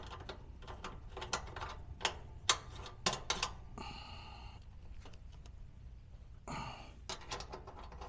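Brass caps being screwed back by hand onto the refrigerant service valves of a mini-split outdoor unit: scattered small metal clicks and ticks, with two short soft rustles about 4 and 6.5 seconds in.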